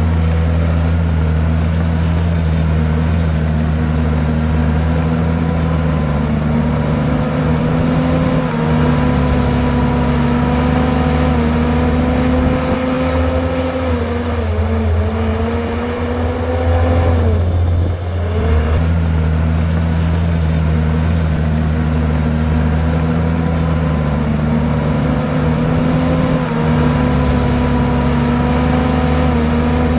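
Komatsu bulldozer's diesel engine running steadily at working revs. Its pitch sags twice around the middle, dipping lowest about eighteen seconds in, then climbs back to its earlier level. This is typical of the engine lugging under load as the blade pushes rock and soil.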